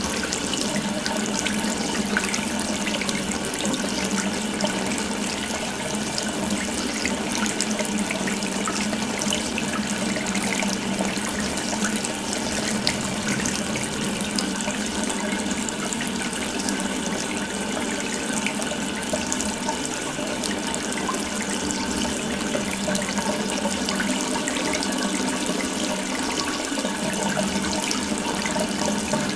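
Water running steadily from an open tap, a continuous splashing stream.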